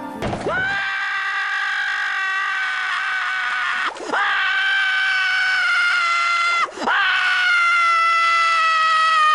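A cartoon character's long, high-pitched scream, heard three times in a row with short breaks between. Each scream slides up at the start, is held for about three seconds and sags slightly in pitch.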